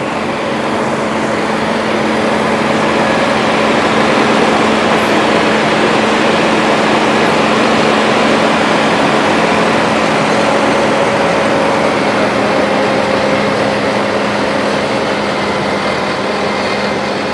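A homemade tractor's two engines, one a Hino diesel, and its tractor-mounted Fimaks forage harvester running steadily under load while cutting and chopping standing maize for silage. It is a dense, loud machine noise with a constant low hum.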